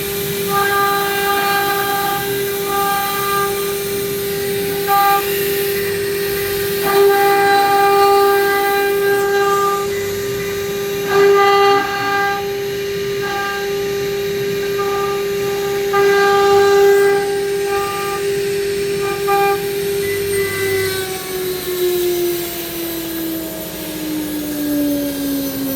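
Stone CNC router's spindle running with a steady high whine, its overtones coming and going as the bit cuts into the stone. About five seconds before the end the pitch starts falling steadily as the spindle winds down.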